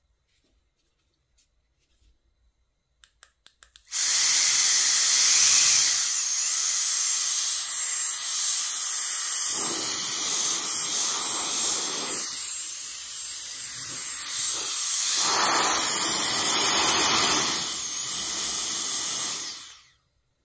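A few clicks, then a ROSSGUN handheld jet turbo fan with a 120 W BS380FB6-SE high-speed motor is switched on and runs with a loud rushing hiss and a high whine that rises as it spins up. Its speed changes: loudest at first, softer for several seconds, loud again, then a step down before it shuts off and spins down near the end.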